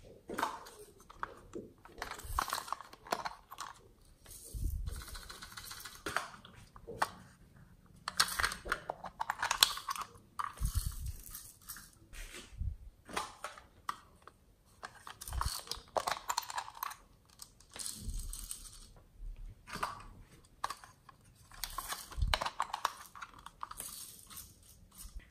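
Small plastic containers of glitter and sequins being handled: clicks, taps and rattles in short, irregular bursts with brief pauses between.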